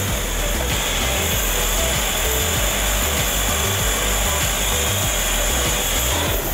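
Gas soldering torch hissing steadily as its blue flame heats a radiator's brass upper-tank seam, over background music; the hiss swells about a second in and drops away near the end.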